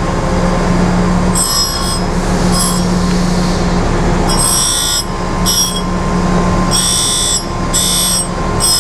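Reid surface grinder with its 60J grinding wheel running with a steady hum and grinding the edge of a steel part. Short bursts of high-pitched hiss come about once a second as the wheel meets the work, starting about a second and a half in and growing longer toward the end.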